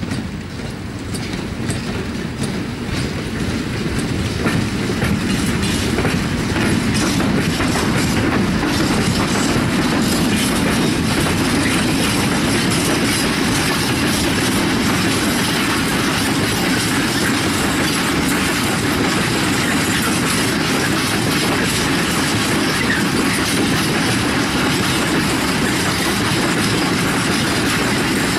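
PKP Cargo freight train of mostly empty flat wagons rolling past close by, its wheels clattering over the rail joints. It grows louder over the first few seconds as it draws near, then runs on steadily.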